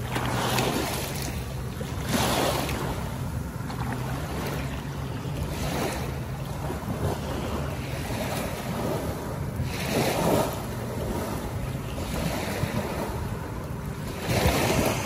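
Shallow water lapping at a sandy shore under gusting wind noise on the microphone, swelling louder every few seconds.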